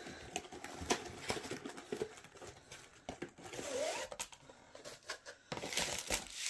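A rolled diamond-painting canvas being slid out of its cardboard box: scraping and rustling of card and paper with light knocks, loudest near the end.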